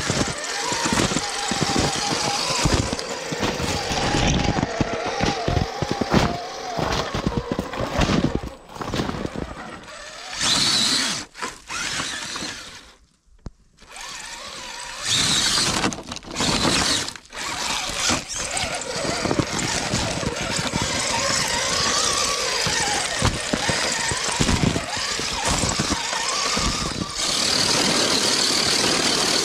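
Traxxas TRX-4 Sport RC crawler's electric motor and geared drivetrain whining as it drives, the pitch wavering with the throttle, while its tyres crunch and knock over icy snow. The sound drops out briefly about halfway through.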